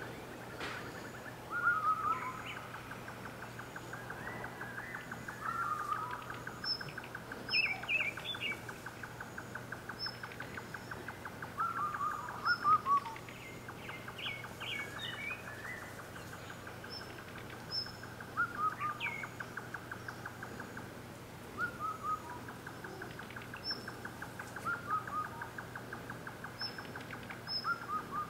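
Outdoor ambience of birds chirping and calling: many short chirps and falling notes over a continuous fast trill, with a faint low hum underneath.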